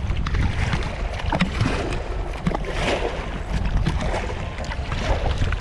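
Kayak paddle strokes splashing irregularly in the water, under a steady rumble of wind on the microphone.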